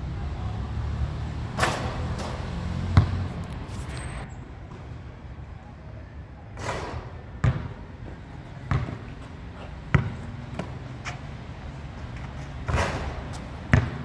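A basketball bouncing on a hard outdoor court: a handful of separate sharp thuds, irregularly spaced a second or more apart.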